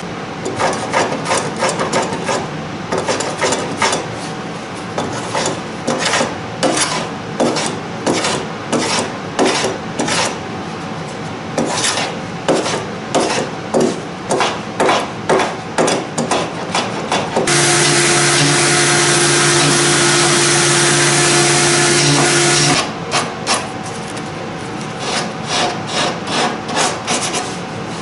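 Repeated rasping strokes of a hand tool shaping the wooden end block of a cedar-strip kayak model, about one stroke a second. Past the middle, a steady machine noise with a low hum replaces the strokes for about five seconds.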